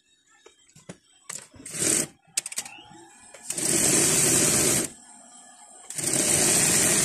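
Industrial sewing machine stitching a white fabric strip folded over piping cord to make welting, in two even runs of a little over a second each, about three and a half seconds in and again near the end. A few clicks and one short loud burst come before the first run.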